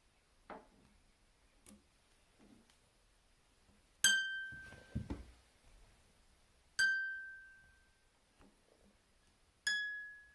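A high harp string plucked three times, each note ringing and fading over about a second, after a few faint clicks of a tool on the lever. The plucks test a freshly regulated Camac lever's semitone, which is better but still too sharp.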